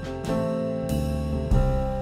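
Live jazz piano trio playing: grand piano chords over a plucked upright double bass, with new chords struck at the start and again about a second and a half in.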